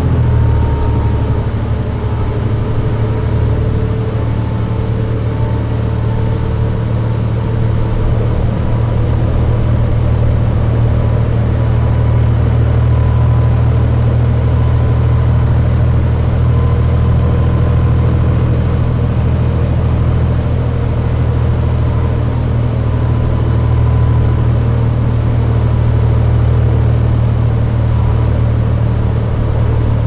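2009 New Flyer D40LFR transit bus heard from inside the cabin, running steadily with the low drone of its Cummins ISL six-cylinder diesel and a thin, steady whine from its MAN drive axle.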